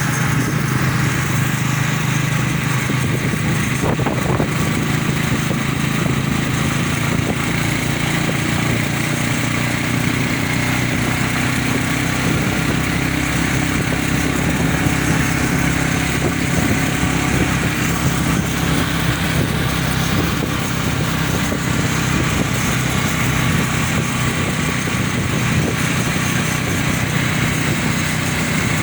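A small engine running steadily with a constant droning hum that holds at an even pitch and loudness.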